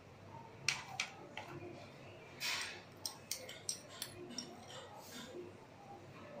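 Utensil clicking and tapping against a small glass bowl as curd is spooned out over the chaat: a few sharp clicks, a short scrape about two and a half seconds in, then a run of light ticks.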